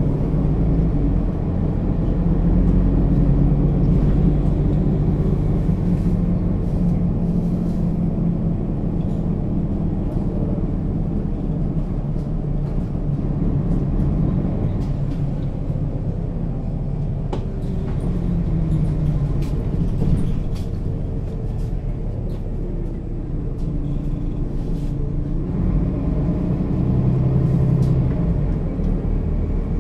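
Mercedes-Benz Citaro O 530 G articulated bus running, its diesel engine and Voith automatic gearbox giving a steady low note that shifts in pitch several times and rises again near the end.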